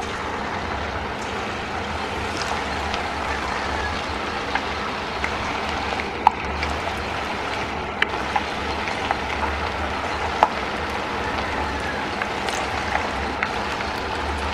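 Batter-coated chicken pieces deep-frying in hot oil: a steady sizzle with scattered sharp pops and crackles.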